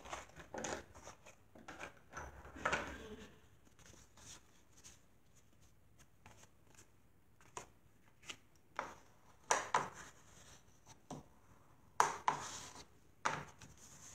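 Cardstock being folded in half and creased with a bone folder: a scatter of short paper rustles and scrapes, the loudest in the second half.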